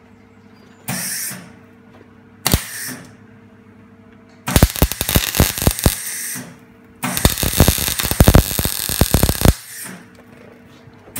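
Esab MIG welder laying spot welds on a car's replacement quarter panel: two short bursts of arc about one and two and a half seconds in, then two longer runs of dense crackling and sputtering, each about two seconds, starting around four and a half and seven seconds in.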